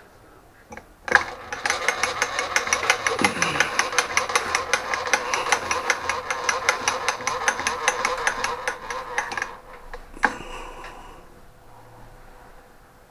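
Drilling into a pulley hub to start the hole for a locking pin, the bit cutting with a rapid, even chatter for about eight seconds before stopping. A single sharp knock follows soon after.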